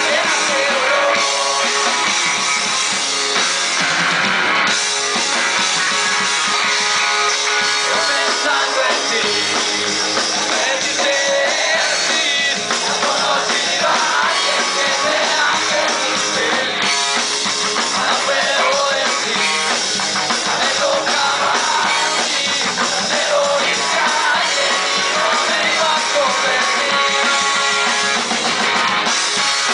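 Punk rock band playing live and loud: electric guitars and a drum kit with a singer's vocals over them.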